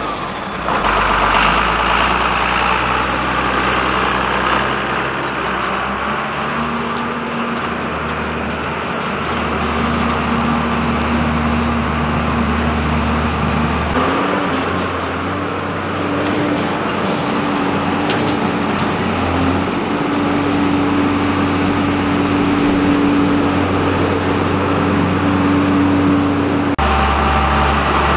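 John Deere 4455 tractor's six-cylinder diesel engine running steadily just after starting, smoke rising from its exhaust stack; partway through, the tractor is heard pulling a hay baler along gravel, the engine note holding steady.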